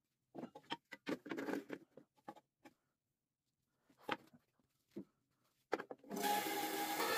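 Wooden pieces handled and set down on the bandsaw's metal table: a cluster of taps and rustles in the first few seconds, then a few single knocks. About six seconds in, the benchtop bandsaw switches on and runs steadily.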